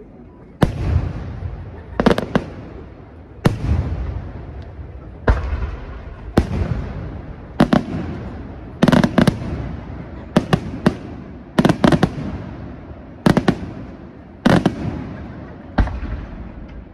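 Aerial firework shells bursting, about a dozen loud bangs, roughly one every second or so, several in quick pairs or clusters. Each bang is followed by a rolling echo that fades before the next.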